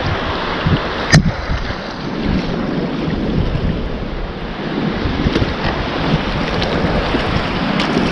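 River rapids rushing around a whitewater kayak, with paddle strokes splashing and wind buffeting the microphone. A single sharp knock about a second in.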